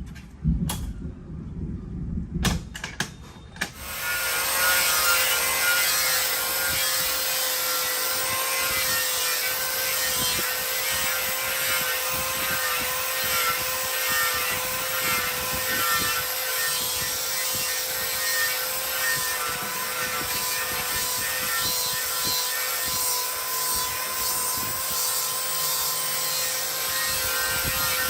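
A few clicks and knocks, then about four seconds in a machine starts running steadily with a slightly wavering whine.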